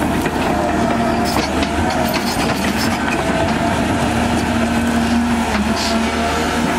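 Cat 320 excavator's diesel engine running steadily as the arm and bucket swing, with a few light knocks.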